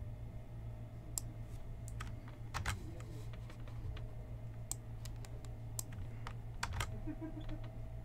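Computer keyboard and mouse clicks, a scattered, irregular run of single clicks, over a low steady hum.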